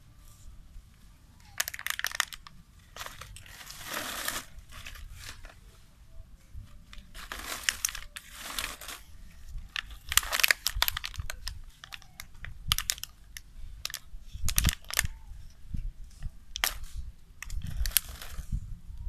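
Thin plastic water bottle crinkling and crackling in repeated bursts as a macaque bites and squeezes it.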